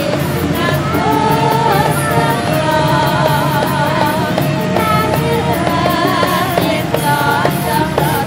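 Music with a singing voice, its notes wavering and gliding in an ornamented line over steady held backing notes.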